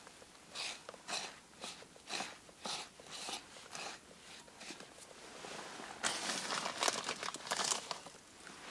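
Hands kneading and squeezing a crumbly falafel mixture in a bowl: a run of crunchy squishes about two a second, then a denser, louder crackly stretch near the end.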